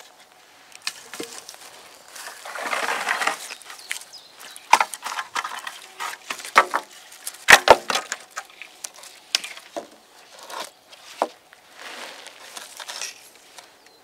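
Wooden sticks and a branch being handled on dry grass and leaf litter: a rustle of dry grass around two to three seconds in, then a string of sharp wooden knocks and clicks, the loudest two close together about seven and a half seconds in.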